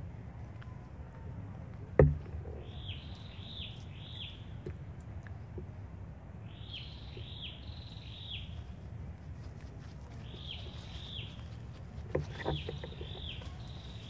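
A bird calling repeatedly: short falling notes in runs of two to four, coming back every few seconds, over a steady low rumble. A single sharp knock stands out about two seconds in, and a few softer clicks come near the end.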